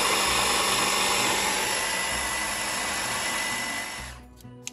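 Handheld immersion blender with its chopper-bowl attachment running steadily, processing roasted red peppers, paprika, tomato paste and vinegar into a smooth paste. It stops about four seconds in.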